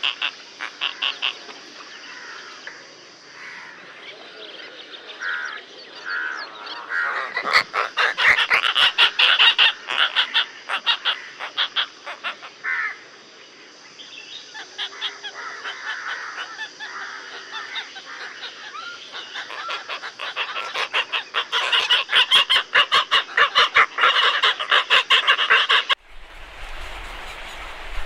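A roosting flock of Asian openbill storks calling in long runs of rapid, rattling pulses, loudest in two spells. About two seconds before the end the sound cuts to a steady hiss with a low rumble.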